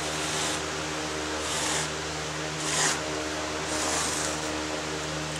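Razor knife slicing through fiberglass chopped strand mat along a steel straight edge, heard as several short scratchy strokes over a steady mechanical hum.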